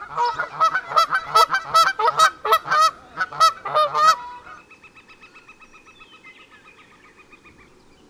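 Geese honking: a loud, rapid series of repeated calls that stops about four seconds in, followed by a much fainter, rapid pulsed call.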